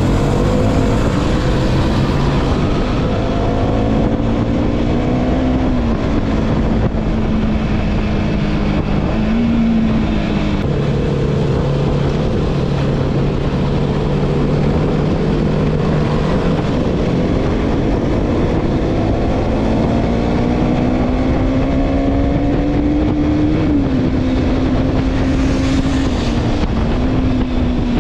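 Motorcycle engine running under way, heard from the rider's seat with wind rushing over the microphone. The engine note rises and falls with the throttle, dropping to a lower steady tone about ten seconds in and climbing again around twenty seconds before easing off near the end.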